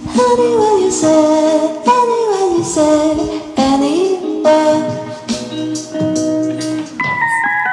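Background music: a sung melody with sliding notes over an instrumental backing with a steady beat.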